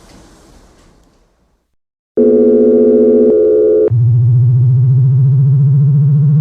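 Synthesized sci-fi telemetry sound effect: a steady electronic tone starts about two seconds in and drops about halfway through to a lower, warbling buzz. Before it, a hiss from the preceding effect fades away.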